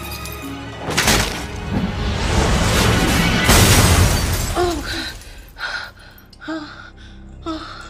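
A crystal chandelier crashing down: a sharp crack about a second in, then a long, loud crash of shattering glass, crystal drops and metal. It is followed by a woman's gasps, four short ones near the end.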